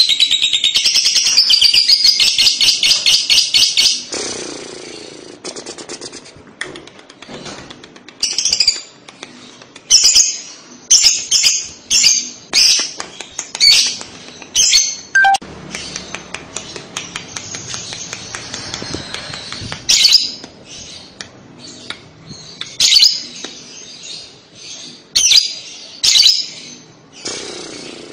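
Fischer's lovebird calling: a loud, rapid chattering trill (the 'kekek' call) for the first four seconds, then after a quieter moment a run of short, sharp chirps coming one to two a second, in clusters with brief pauses.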